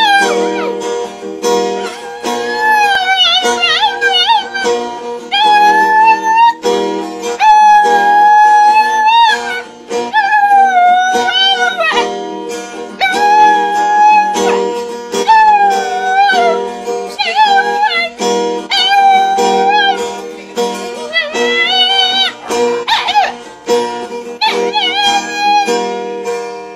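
A dog howling along to an acoustic guitar being strummed, in a series of long, wavering held notes with short breaks between them.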